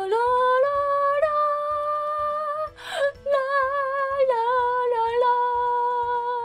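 A woman's voice singing long held notes with vibrato over a soft, steady backing beat.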